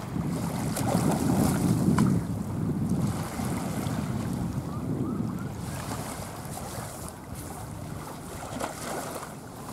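Batik Air ATR 72-600 twin turboprop climbing away overhead: a low, noisy rumble of engines and propellers that fades steadily after the first few seconds as the aircraft recedes, with wind buffeting the microphone.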